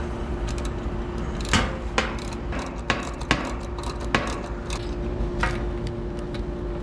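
Scattered sharp metallic clicks and clinks of a service ratchet wrench working the suction line king valve on an AC condensing unit, as the valve is opened. A steady faint hum runs underneath.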